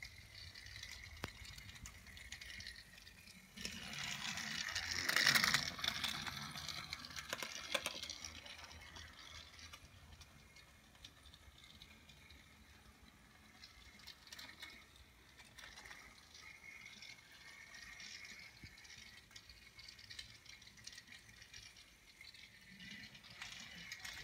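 Battery-powered Thomas TrackMaster toy engine running along plastic track: its small motor whirring and the wheels rattling over the track. Louder for a few seconds, about four to eight seconds in.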